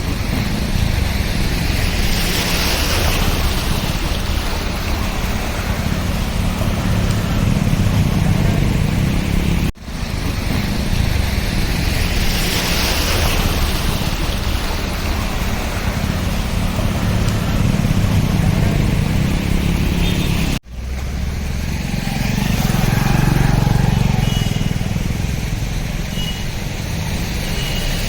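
Street traffic noise: vehicle engines running and road noise with a steady rushing haze, broken by two abrupt cuts about ten and twenty seconds in.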